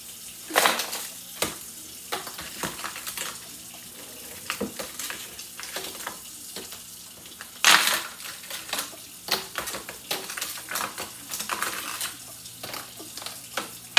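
Ice cubes being cracked loose from a plastic ice-cube tray and dropped into a plastic pitcher: a long run of sharp cracks and clicks, loudest about half a second, a second and a half and nearly eight seconds in. A tap runs steadily under it.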